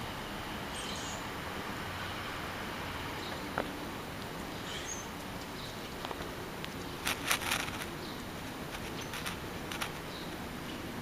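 Steady outdoor background hiss and hum with faint, scattered high chirps. There is a single click about three and a half seconds in, and a short run of scratchy clicks about seven seconds in, with a few more near the end.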